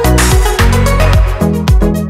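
Electronic dance-style background music with a steady kick-drum beat over a sustained bass line.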